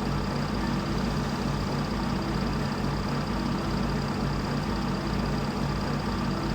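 A motor running steadily, with an even low hum and a faint high whine.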